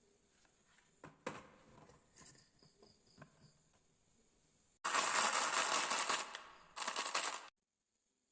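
Marbles running down a wooden HABA marble run: a few light clicks, then about five seconds in a loud, dense rattle of rapid clicks for nearly three seconds that cuts off suddenly.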